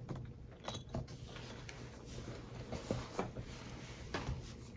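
Faint handling of thick cardboard game boards: a few scattered soft taps and rubs as the jigsaw-edged board pieces are slid into place and pressed flat on a felt-covered table.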